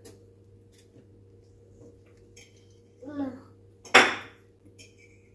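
A short voice sound about three seconds in, then a sharp clatter about a second later, the loudest sound here, with a few faint clicks around it.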